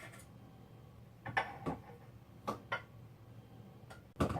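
A few light clicks and knocks from kitchen things being handled while getting ready to bake, over a faint steady room hum.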